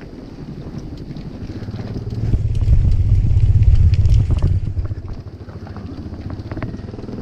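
A motor vehicle passes close by: its engine hum swells about two seconds in and fades away by about five seconds. Steady wind and road noise run underneath.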